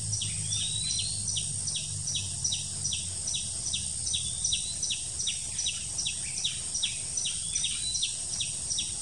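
Forest background of a high chirp repeating steadily about three to four times a second over a constant high hiss, with two brief rising bird calls about half a second and four and a half seconds in.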